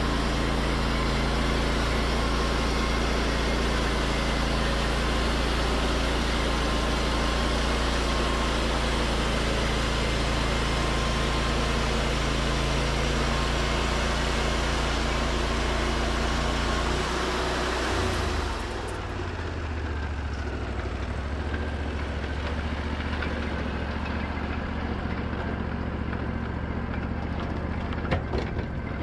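Wood-Mizer LT40 bandsaw mill running under load, its band blade sawing through white pine with a steady hiss over the engine. About two-thirds through, the cut ends: the hiss stops and the engine's note drops, running on steadily. A few clicks come near the end.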